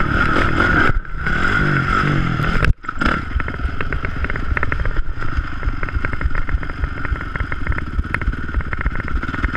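Honda CRF450 single-cylinder four-stroke dirt bike engine revving up the kicker ramp. About three seconds in, as the bike leaves the ramp, the sound cuts out for a moment. The engine then runs at lower revs with a rapid, even firing beat.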